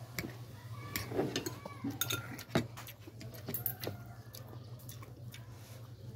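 Metal fork clinking and scraping against a plate as noodles are twirled and lifted, a few sharp clicks, the loudest about two and a half seconds in, over a steady low hum.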